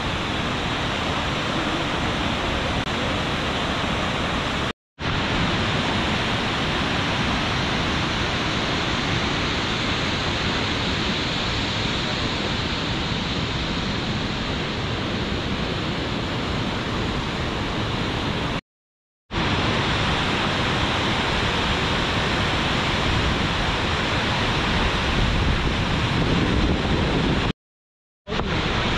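Steady rushing roar of Jog Falls, the Sharavati River plunging down a high waterfall, broken by three brief silences.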